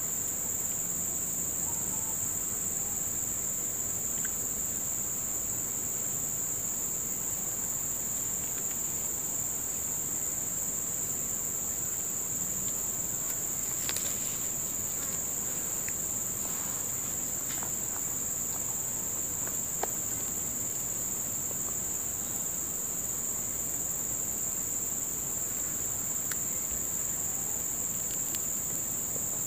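Steady shrill chorus of insects, one unbroken high-pitched drone with a fainter, even higher band above it, and a few faint clicks about halfway.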